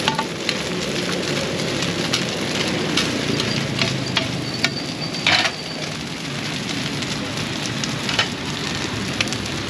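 Cubes of bột chiên rice cake sizzling in hot oil in a large flat frying pan over high heat, a steady crackling fry. Metal spatulas scrape and clink against the pan throughout, with a louder clatter about five seconds in.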